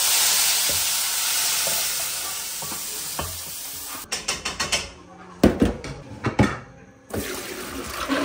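Hot tadka (spices fried in oil) poured from a frying pan into a pot of cooked dal, sizzling loudly the moment it hits and dying down over about four seconds. A run of metal clatters and knocks follows as a perforated steel colander is handled. Near the end, soaked chana dal and its water are poured into a colander in the sink.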